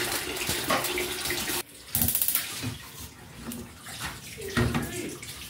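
Water running and splashing, as from a tap. It cuts off abruptly about a second and a half in, then goes on more faintly.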